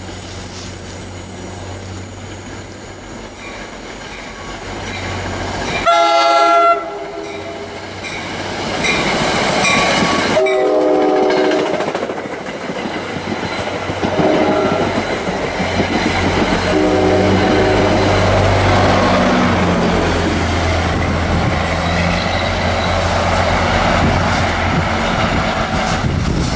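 NJ Transit commuter train sounding its horn in four separate blasts as it approaches, the last blast the longest, then running past with the rumble and clack of its wheels on the rails.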